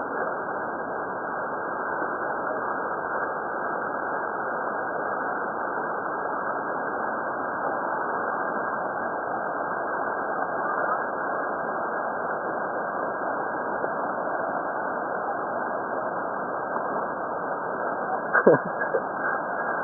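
Steady rushing of a fast-flowing river over rapids, an even noise that does not change. Near the end comes one brief sharp sound with a quick falling pitch.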